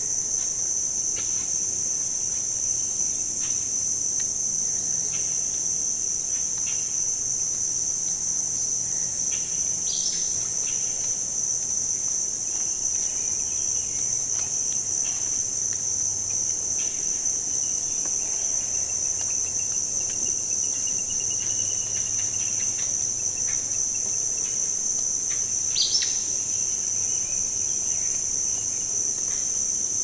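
Steady high-pitched insect chorus, like crickets trilling, with a few faint short chirps over it. A faint thin wavering whistle comes in the middle, and there are two brief sharp chirps, one about a third of the way in and a louder one late on.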